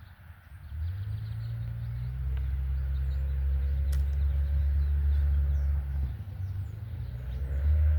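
Steady low engine rumble of a nearby motor vehicle that comes in about a second in, eases off briefly around six seconds and builds again near the end, with small birds chirping.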